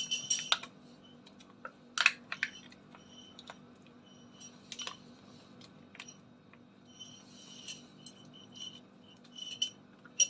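Scattered clicks and crinkles of a soft plastic yogurt pack being squeezed and handled over a plastic food container, over a faint steady low hum.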